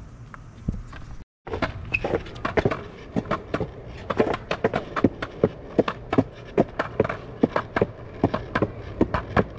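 Skateboard wheels rolling along a concrete sidewalk: a steady low rumble with a rapid, uneven clatter of clicks from the wheels and board.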